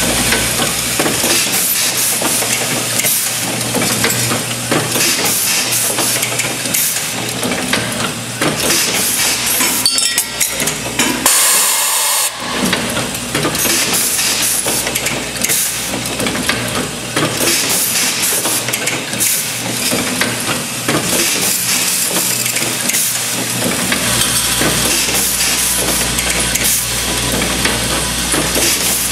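Automated dial-table assembly machine for bolt, grommet, washer and nut parts running in production: a constant clatter of quick clicks and knocks from its grippers and parts over a steady low hum. A loud burst of air hiss comes about eleven seconds in and lasts about a second.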